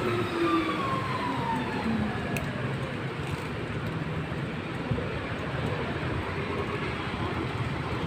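Steady rushing noise of a moving bicycle: wind on the microphone and tyres rolling over the tiled pavement, with a tone falling in pitch over the first two seconds.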